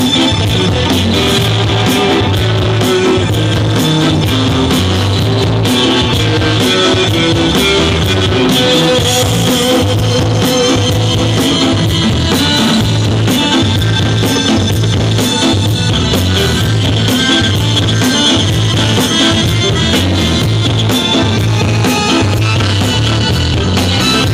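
Live band playing an instrumental passage: electric guitar over a bass line that repeats in even pulses, with drums.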